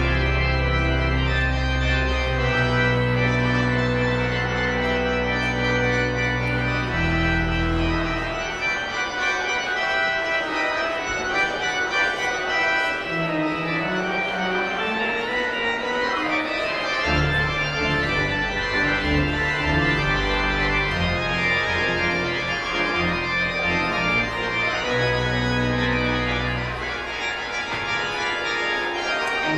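Organ playing: long held chords over deep bass notes, thinning out partway through into a rising run of notes before the full chords come back.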